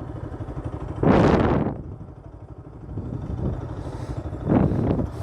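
Motorcycle engine running at low speed with a steady, rapidly pulsing rumble, and two louder short bursts about a second in and near the end.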